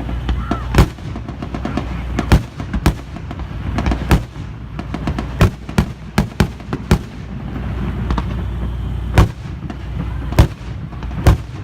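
Staged anti-aircraft barrage of an air-raid reenactment: about a dozen loud bangs and booms, irregularly spaced, with fainter pops between, over a steady low rumble.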